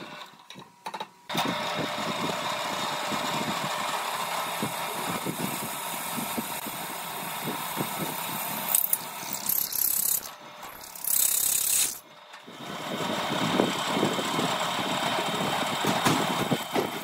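Bench drill press running, its twist bit boring through a steel flat bar. The steady motor drone starts about a second in, sharper hissing bursts come in the middle, and after a brief dropout it carries on.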